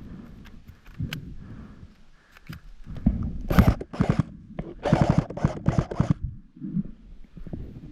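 Close rustling and scuffing noises from a player moving with the camera: two loud bursts about three and a half seconds in, then a quicker run of four about five seconds in.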